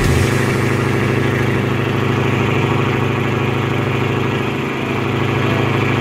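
Boat engine running steadily, a low even drone.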